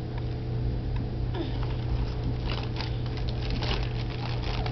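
A toddler handling a cardboard Cheerios box, with light crinkling and small clicks that get busier about halfway through, over a steady low electrical hum.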